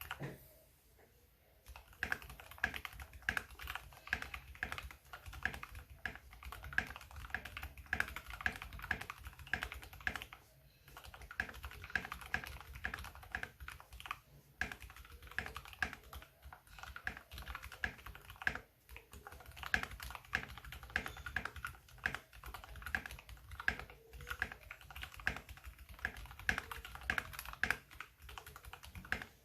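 Typing on an EPOMAKER GK68XS mechanical keyboard with lubed Gateron Black linear switches: a fast, steady run of keystrokes that begins about two seconds in, with a few short pauses.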